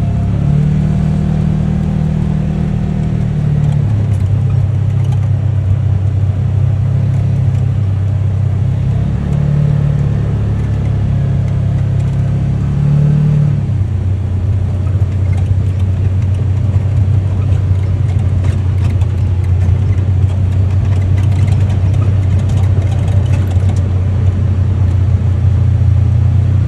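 UTV engine running under way, a steady low drone that changes pitch a few times in the first half and then holds steady.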